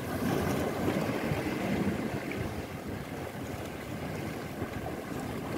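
Steady rushing noise of wind buffeting the microphone over sea waves washing against jetty rocks, heaviest in the low rumble.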